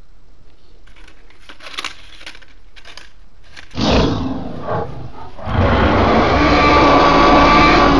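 A loud dinosaur-style roar for a T. rex sock puppet: a short roar a little under four seconds in, then a longer, louder one held to the end. Before it, soft rustling of houseplant leaves.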